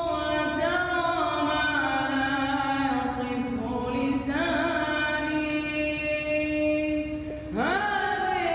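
A young man's voice singing an unaccompanied Arabic nasheed from inside a large metal tank, holding long notes that waver and slide between pitches. Near the end he pauses briefly for breath, then sweeps up into a new phrase.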